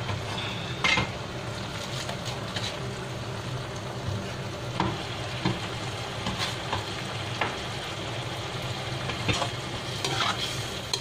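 A ladle stirring and scraping around a wok of simmering lentils, with several short sharp clinks against the pan, over a steady sizzling hiss from the cooking.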